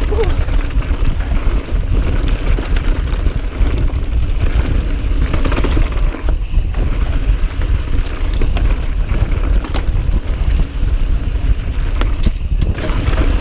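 Wind rumbling on the microphone and mountain bike tyres rolling over loose, dusty dirt at speed, with scattered sharp clicks and rattles from the bike over bumps.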